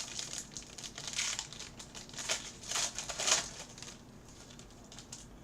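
Foil wrapper of a football trading-card pack being torn open and crinkled: a run of crackling rustles that stops about four seconds in.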